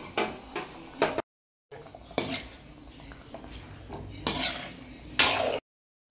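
A metal spoon clinking and scraping against a metal kadai as a thick liver curry is stirred: a few sharp knocks and some longer scrapes. The sound cuts off abruptly twice, at edits.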